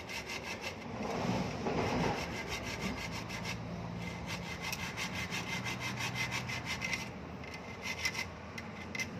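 Hacksaw blade cutting through the plastic fitting on a broom handle, in quick, even back-and-forth strokes. The sawing grows louder for a moment about a second in.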